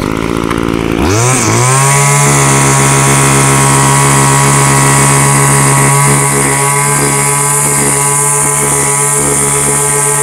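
Old Homelite small two-stroke engine revving up sharply about a second in, then held at a steady high speed while its carburetor is being adjusted.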